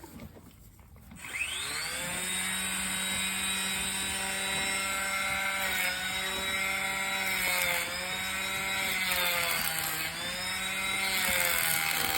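Bostitch electric hand planer starting about a second in, its motor whining up to speed, then running steadily while trimming a horse's hoof. Its pitch sags briefly a few times as the blades bite into the hoof.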